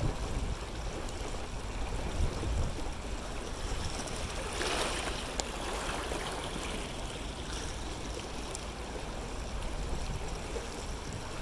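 Water rushing and splashing along an inflatable dinghy driven at full throttle by a Torqeedo Travel 1103 electric outboard, the motor itself giving no distinct sound over the water, with a low rumble throughout. A louder rush of splashing comes about five seconds in.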